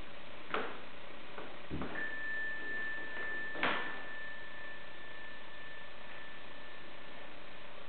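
Soft rustles and a low thud of a body shifting on a yoga mat while rolling up into a shoulderstand, the loudest rustle about three and a half seconds in, over steady room hiss. A thin steady high tone starts about two seconds in and holds for about five seconds.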